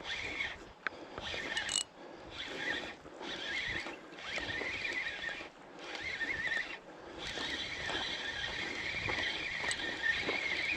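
Fishing reel's drag squealing in repeated surges of a second or two as a hooked barramundi pulls line off the reel, running almost without a break near the end.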